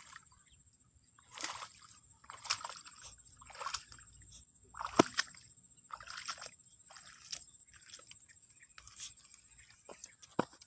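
Water splashing and sloshing in short, irregular bursts about once a second, with a couple of sharp clicks near the end.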